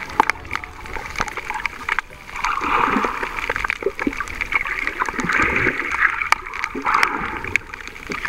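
Water sloshing and gurgling around a camera held underwater over a rocky reef. The muffled noise swells and fades a few times, and scattered sharp clicks run through it.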